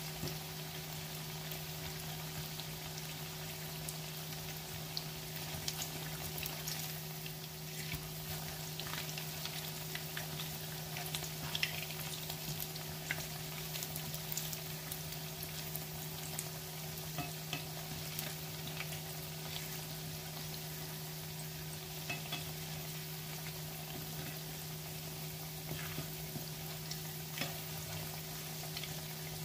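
Battered fritters sizzling in shallow hot oil in a frying pan: a steady hiss with scattered crackles and pops.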